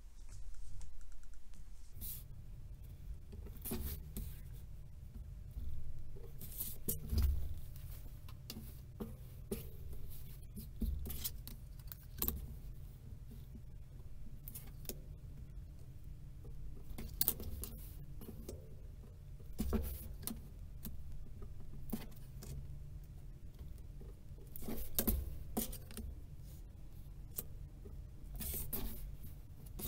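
Light handling sounds: lining fabric rustling as it is turned over, and a clear plastic ruler and marking pen knocking and scraping on a cutting mat in scattered short clicks. A low steady hum starts about two seconds in.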